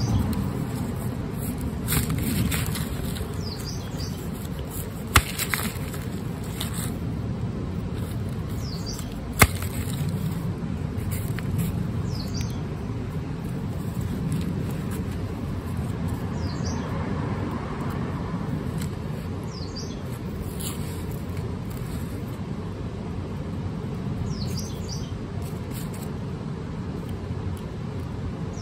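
Outdoor background with a low rumble of wind on the microphone and a few short bird chirps, while garlic bulbs are handled and their roots cut with a knife. Two sharp clicks stand out, about five and nine seconds in.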